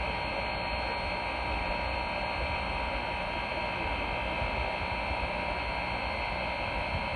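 Steady hiss and hum of a standing steam locomotive, with several constant tones over the noise and no whistle blast.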